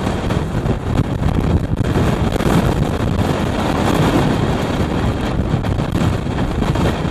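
Blizzard wind buffeting the microphone: a loud, continuous rush of noise, heaviest in the low end, rising and falling slightly with the gusts.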